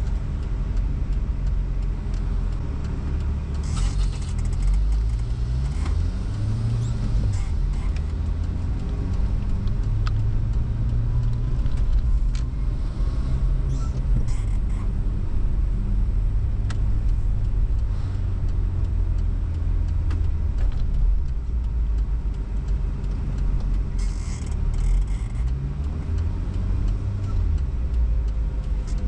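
Car engine and road noise heard from inside a moving car: a steady low hum whose engine pitch rises and falls a few times as the car changes speed.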